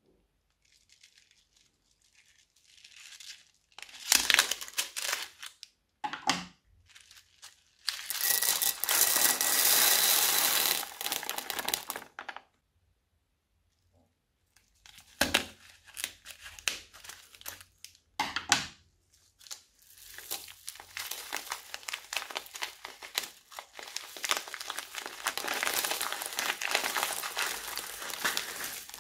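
Plastic piping bags full of sprinkles and beads crinkling and rustling as they are handled and squeezed out, in several bouts with quiet gaps between, the longest running on through the last third.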